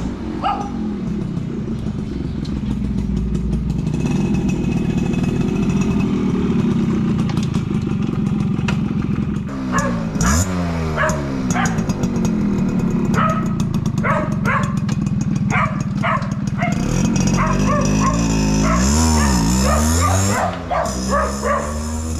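Suzuki AX100's two-stroke single-cylinder engine idling through a new exhaust, revved up and down about ten seconds in and again several times near the end. A dog barks repeatedly during the revving.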